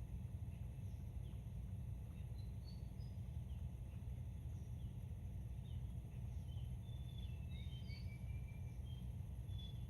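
Small birds chirping: scattered short high chirps and quick falling notes, coming thicker in the last few seconds, over a steady low rumble.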